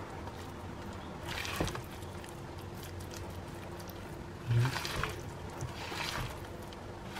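A metal spoon stirring raw chicken pieces coated in egg and flour in a plastic bowl: a few short bursts of wet squishing and scraping.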